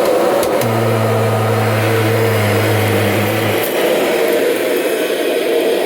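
A 1998 Kirby Generation 5 upright vacuum's motor running steadily at full speed. A deeper hum comes in about half a second in and drops out about three and a half seconds in.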